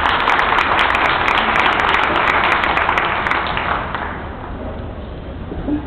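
Audience applauding, the clapping thinning out and fading about four seconds in.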